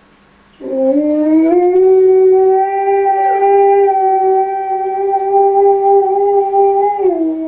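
A husky-type dog howling: one long howl that begins about half a second in, rises briefly, then holds a steady pitch for about six seconds before dipping at the end.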